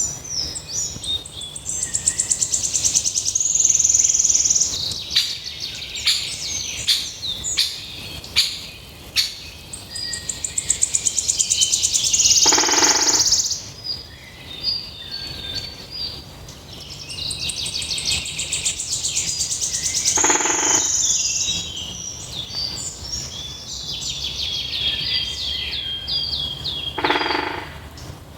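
A songbird singing: high, rapid trills and chirps. A louder phrase comes back about every seven or eight seconds, each time with a short, lower note.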